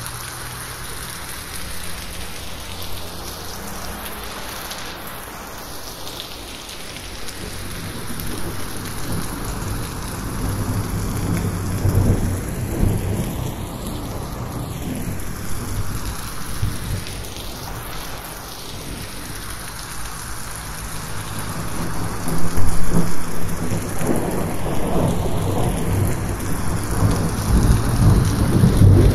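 Heavy rain falling steadily on a roof, with rolling thunder rumbling low beneath it. The thunder swells twice, in the middle and again in the last third, and is loudest about two-thirds through. The audio is 8D-processed, panned around the listener's head.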